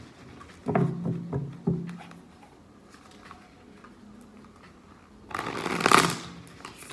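A deck of tarot cards being handled and shuffled: a few short knocks about a second in as the deck is worked on the table, then a riffle shuffle with the cards bridged back together, loudest about six seconds in.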